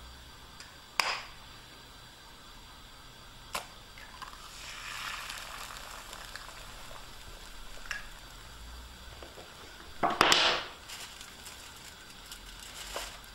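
An egg is tapped against a nonstick frying pan and dropped in, followed by a soft sizzle of the egg white on the hot pan. About two-thirds of the way through comes a louder, brief clatter as the metal pan is knocked and shifted.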